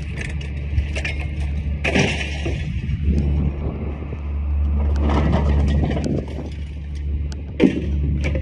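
Scrap being handled and tossed out of a pickup bed: clanks and rattles of metal and junk, with a sharp strike near the end, over a steady low rumble.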